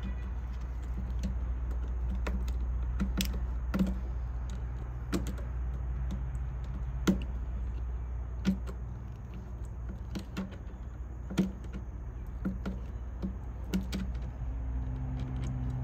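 Irregular small metallic clicks of a pocketknife's screwdriver blade turning a hose-clamp screw, tightening the clamp on a fuel hose, over a steady low background rumble.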